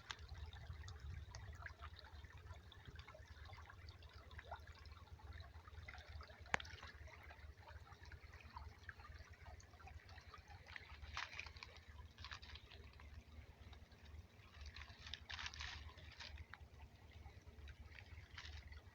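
Faint creek water trickling over rocks, with scattered soft crackles and one sharp click about six and a half seconds in.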